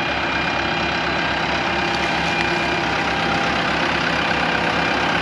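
Kubota loader tractor's diesel engine running steadily as the tractor drives slowly past close by, with an even, pulsing engine note.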